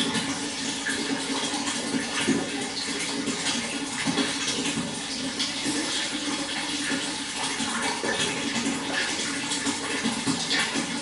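Running water splashing and rushing steadily, with no let-up.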